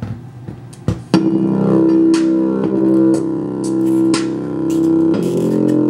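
Song starting on a small Altec Solo Jacket Bluetooth speaker about a second in, right after a sharp click. Held low notes with regular drum hits.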